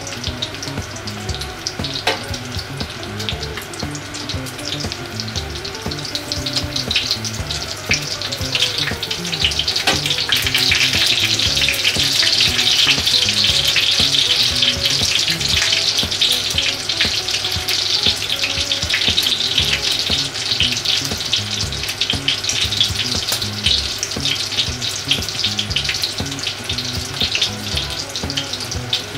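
Breaded pork cutlets shallow-frying in oil in a cast-iron skillet, a steady sizzle full of small pops and crackles. The sizzle swells for several seconds around the middle, while the cutlets are being turned, then eases back.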